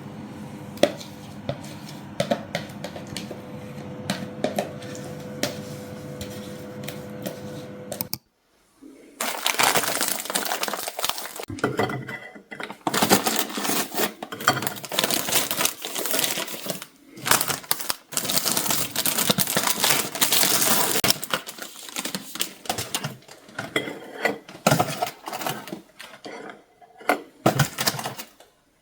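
Kitchen clatter of dishes and utensils: clinking, tapping and scraping of a spoon against pots and plates, irregular and busy with short pauses. It is preceded for the first several seconds by a steady hum with a few light clinks, which stops suddenly.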